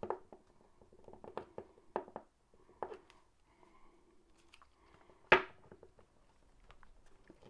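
Plastic clicks and knocks from a Dremel 757 NiCad battery pack's case being handled and pressed together by hand: a run of small clicks in the first few seconds, then one sharp, loud click a little past five seconds in.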